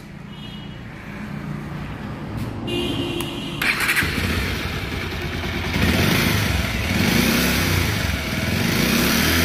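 Bajaj Pulsar motorcycle engine running and revving, getting louder about halfway through. The owner-mechanic describes the engine sound as bad, with an ugly noise coming from around the fuel tank.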